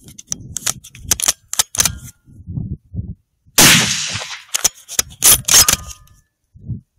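A single .308 Winchester rifle shot about three and a half seconds in, with a long fading echo. Sharp metallic clicks and clacks of the bolt-action rifle being handled and its bolt worked come before and after the shot.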